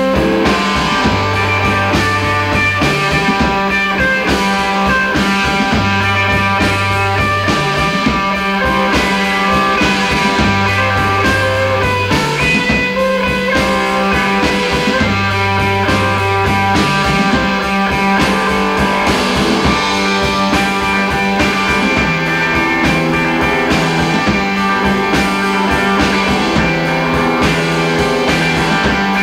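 Live shoegaze/indie rock band playing: electric guitar, bass guitar and drum kit. The bass steps between a lower and a higher note in a repeating pattern, under sustained guitar and steady drumming.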